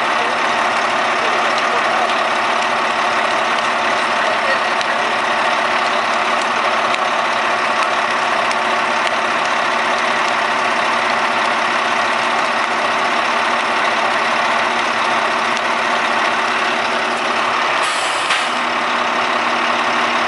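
A truck's engine running steadily at idle. About 18 seconds in there is a short click, and the low note of the engine steps up.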